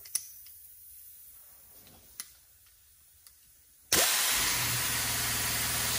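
Pneumatic angle grinder with a grinding wheel, switched on about four seconds in and then running at speed with a steady rush of air and a low hum. A few light clicks of the tool being handled come before it starts.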